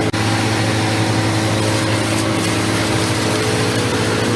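A machine's engine running steadily at a constant speed, with a steady hum and an even mechanical noise over it.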